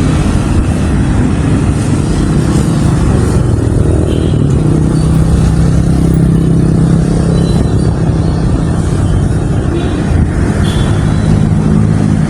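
Road traffic: motor vehicle engines running close by, one engine's note dropping about three seconds in.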